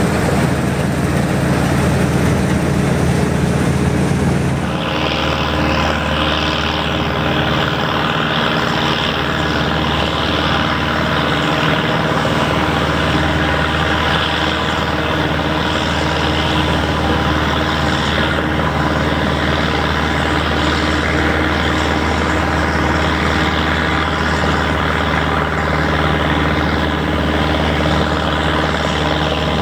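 John Deere 3020 tractor engine running steadily under load as it pulls a John Deere 9501 pull-type combine harvesting wheat, mixed with the combine's threshing machinery. The sound shifts abruptly about five seconds in.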